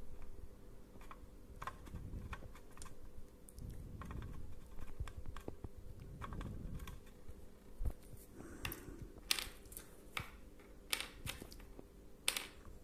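Light, irregular clicks and taps of small plastic parts and a glue bottle being handled on a work surface, sharper and more frequent in the second half.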